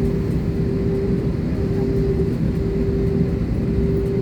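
Airliner cabin noise: a steady low rumble from the running engines, with a steady hum over it that drops out briefly a few times.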